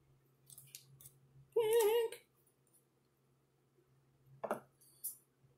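Light crinkling of a plastic piping bag being handled. Near the end comes a knock, then a short, high scissors sound as scissors are readied to cut the bag's tip.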